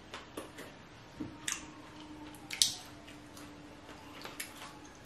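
Soft wet eating sounds: chewing with the mouth close to the microphone and sauce-covered seafood being picked at by hand, with scattered small clicks and squelches, the sharpest about two and a half seconds in. A faint steady low tone runs through the middle.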